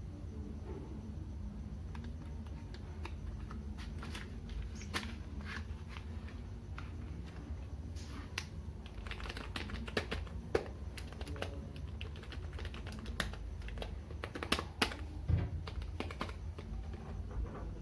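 Keys of a KiTech KB-011 wired keyboard being pressed, giving irregular clicks that come thicker and louder in the second half.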